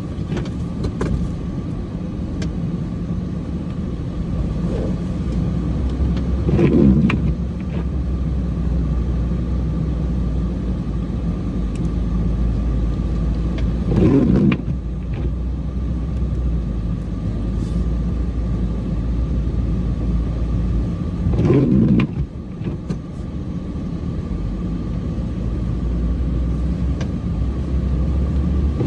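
Cummins diesel truck engine running steadily while plowing snow, heard from inside the cab, with a brief louder surge about every seven and a half seconds.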